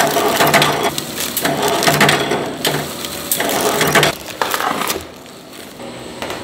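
Thin plastic packaging bags crinkling in repeated bursts about every half second as a gloved hand presses down on the filled bags. The crinkling stops about five seconds in, leaving quieter room noise.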